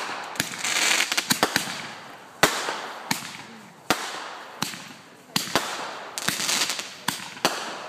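Fireworks going off: a string of sharp bangs, about one or two a second, with a crackling hiss trailing after several of them as the shells burst.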